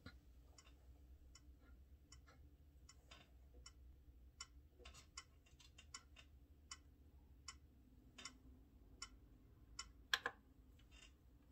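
Faint metronome ticking at about 78 beats a minute, roughly one click every three-quarters of a second, as a count-in before piano playing. A few softer clicks fall between the beats, and a louder cluster of clicks comes about ten seconds in, as buttons on the digital piano's panel are pressed.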